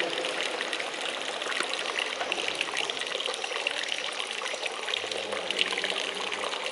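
Fountain spout sending a thin jet of water into a full stone basin, splashing and trickling steadily.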